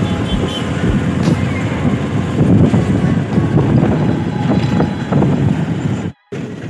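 Engine and road noise heard from inside a moving passenger vehicle: a steady low rumble with a few knocks from the body. The sound drops out abruptly for a moment near the end.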